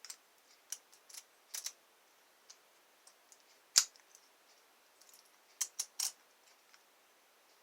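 Scattered sharp metallic clicks and taps of an Abus padlock and lock-picking tools being handled. The loudest comes about four seconds in, followed by a quick run of three clicks.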